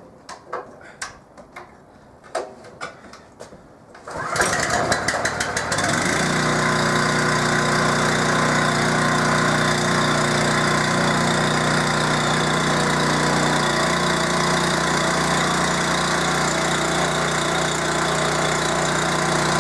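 An industrial pressure washer's engine is started after a few clicks and knocks. It catches about four seconds in, settles within a couple of seconds, and then runs steadily with the pump under load. The pump is re-primed and back at full pressure now that the air has been purged from the suction hose.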